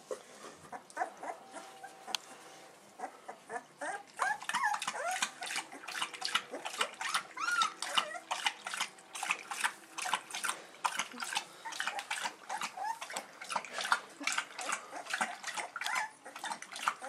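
Two-week-old bullmastiff puppies making high squeaks and whimpers. From about four seconds in, a fast run of small clicking and smacking sounds goes along with them.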